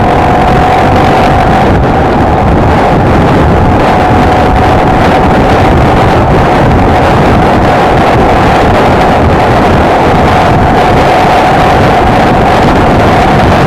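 Honda XLR125R's single-cylinder four-stroke engine running at a steady cruising speed, buried in heavy wind noise on the microphone, with a steady high tone running through it.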